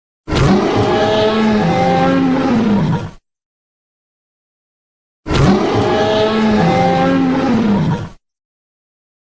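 Tyrannosaurus rex roar sound effect, played twice about five seconds apart. Each roar lasts about three seconds, with a low wavering growl under higher gliding tones, and the two are identical.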